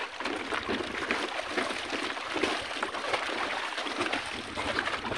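Water splashing and sloshing steadily as a person swims and wades through lake water.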